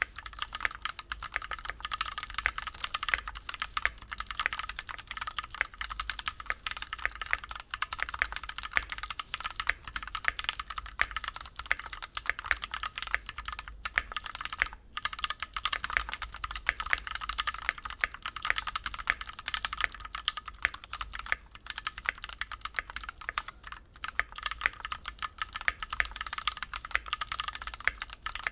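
Continuous typing on a Keychron Q3 mechanical keyboard with factory-lubed Gateron G Pro Brown switches: a dense, fast stream of keystroke clacks, with a couple of brief pauses about halfway through and again later.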